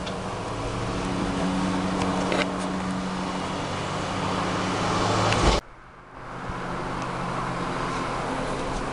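Road traffic noise: a motor vehicle running and growing louder as it approaches. The sound cuts off abruptly just past halfway, then steady traffic noise resumes.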